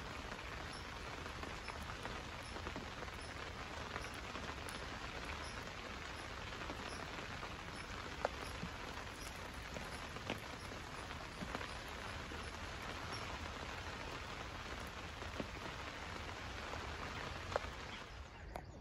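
Steady rain falling, a continuous hiss with the odd sharper drop hitting.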